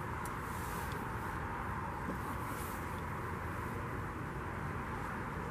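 Steady outdoor background noise: an even low rumble with a hiss over it, and no distinct event standing out.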